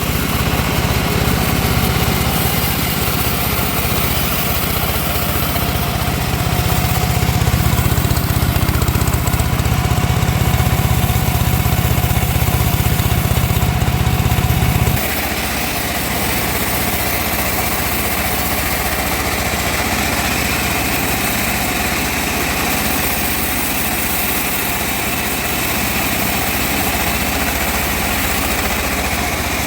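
Engine-driven sawmill running while sawing teak. Its heavy low rumble drops off abruptly about halfway through, and the machine runs on more lightly.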